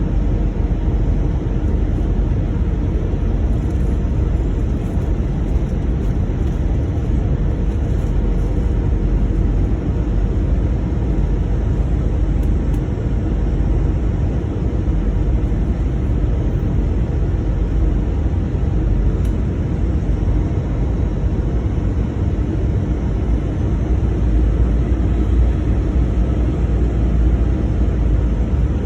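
Steady rumble of an Airbus A321's engines and airflow heard from inside the cabin, a constant deep drone without breaks.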